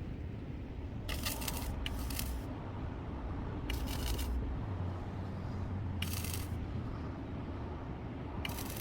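Short bursts of welding-arc crackle, about half a second each, five times, as tack welds are struck on steel pipe, over a steady low hum.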